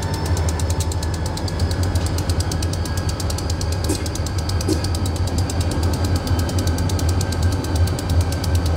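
Freight train moving: a steady low diesel locomotive rumble with a rapid, even clicking and a faint high whine above it.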